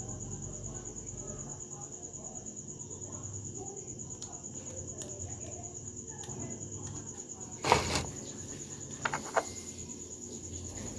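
Steady high-pitched insect chirring. About eight seconds in there is a sharp clatter, and a second later two light clicks, as small metal fishing-reel parts are handled.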